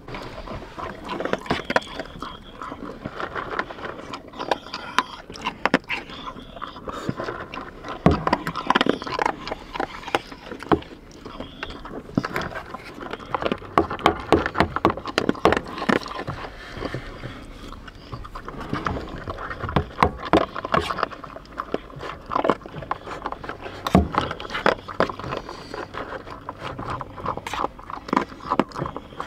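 English springer spaniel eating from a bowl: a dense, irregular run of clicks, smacks and small knocks. A spoon scrapes and clinks in a metal bowl now and then.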